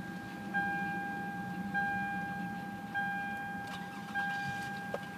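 2003 Toyota Camry's dashboard warning chime dinging over and over, about one ding every 1.2 seconds, each ding fading until the next.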